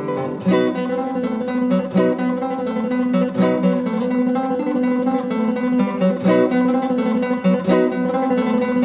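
Background music: an acoustic guitar playing a flamenco-style piece, with plucked and strummed notes at a steady, even level.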